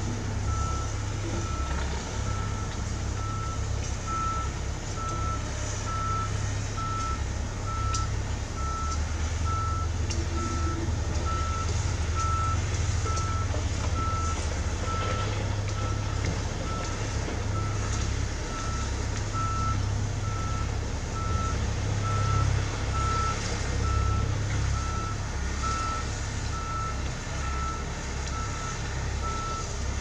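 Dump truck's reversing alarm beeping steadily at one pitch, about once a second, over its diesel engine running as the truck backs up and raises its body to tip its load of rock.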